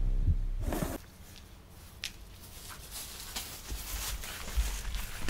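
A louder sound breaks off about a second in. After it come quiet rustling and scattered light knocks, footsteps on grass and things being handled near the van.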